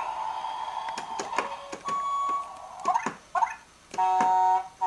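Electronic beeps and synthesized tones: a steady hum with scattered clicks and a short high beep, then three held electronic tones of about half a second each near the end.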